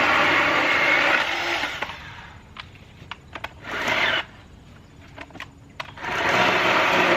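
Jawsaw cordless electric chainsaw running and cutting sticks, stopping about two seconds in. A few sharp clicks and one short burst of the motor follow, and the saw starts running again about six seconds in.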